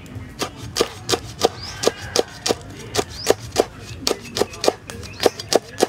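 Knife chopping green leaves into thin strips on a round wooden chopping block: a steady run of sharp knocks, about three a second, as the blade strikes the wood.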